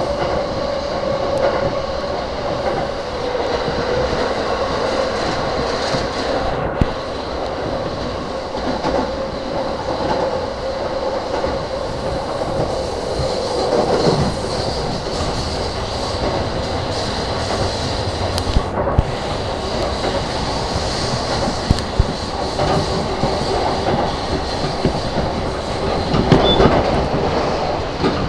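Inside a car of a JR E235-series electric commuter train running at speed: steady rolling noise of steel wheels on rail, with a few sharp clicks. A faint whine fades out about halfway through.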